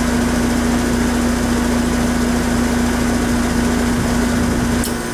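Heat pump outdoor unit running: a steady compressor hum with one constant tone over the fan's noise. Near the end the hum and low rumble drop away abruptly as the unit is switched into defrost.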